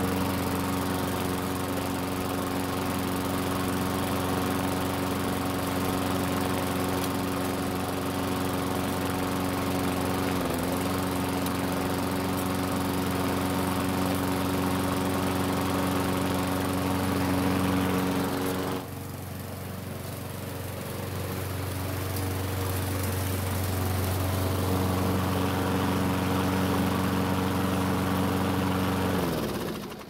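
Poulan Pro walk-behind mower's small single-cylinder engine running steadily at a constant speed to warm up, running smoothly on fresh gas after its diesel-contaminated fuel was replaced. The level drops suddenly a little past halfway and builds back up, and near the end the pitch falls and the engine cuts off.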